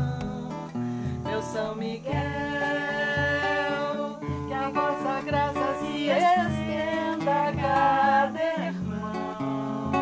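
Acoustic guitar strummed in a steady rhythm, with a woman's voice singing long held notes over it.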